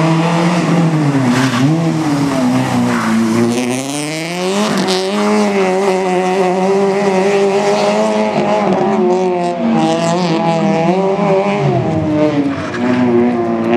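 Fiat Cinquecento Sporting rally car's 1.2 16-valve four-cylinder engine revved hard on a stage, its pitch climbing and dropping as the driver lifts and shifts through the corners. One long rise about four seconds in breaks off into a gear change, then the revs hold high before dipping and climbing again near the end.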